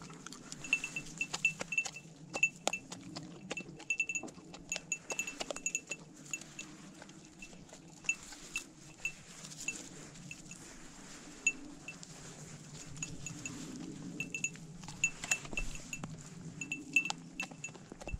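A duck being plucked by hand, its feathers pulled out in quick little tearing clicks, with a light metallic tinkling mixed in. The clicks come thick for the first several seconds, thin out, then crowd together again near the end.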